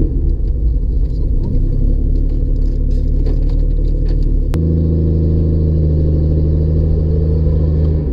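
Jeep's engine and tyres droning inside the cabin while driving on a dirt road, a low steady rumble. About halfway through, a sharp click, after which the drone settles into a smoother low hum.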